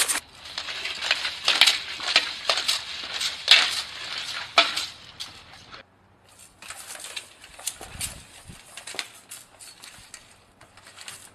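Steel plate armour clinking and rattling with each movement of the wearer, a dense run of metallic clinks that breaks off briefly about six seconds in, then goes on sparser and quieter.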